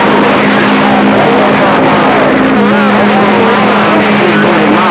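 CB radio transmission over a base-station speaker: loud static hiss with steady humming tones and garbled, barely intelligible voice underneath, a rough, distorted signal. One of the hum tones drops out about halfway through, and the voice grows clearer near the end.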